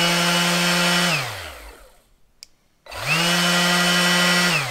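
Craftsman V20 5-inch cordless random orbital sander running for a noise test with a steady motor whine. It winds down after about a second, is switched on again near the three-second mark, spins up to full speed, and starts to wind down at the end.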